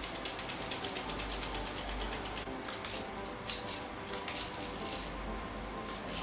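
Metal sifter clicking rapidly as powdered chocolate cake is shaken through it, about eight clicks a second, slowing after about two and a half seconds to a few scattered clicks. Faint background music underneath.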